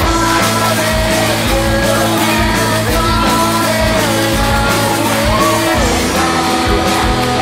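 Rock background music with a steady beat and a lead melody that slides between held notes.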